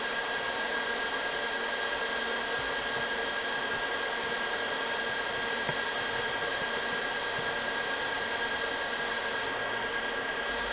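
Steady whir of computer cooling fans: an even hiss with a few faint, steady high whining tones running through it.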